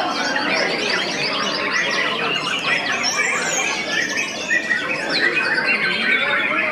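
White-rumped shamas (murai batu) singing together in a dense, overlapping chorus of rapid chirps and whistles, with no break.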